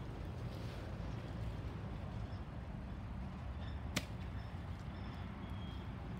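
Norfolk Southern intermodal freight train rolling past: a steady low rumble of the cars running on the rails, with one sharp clack about four seconds in.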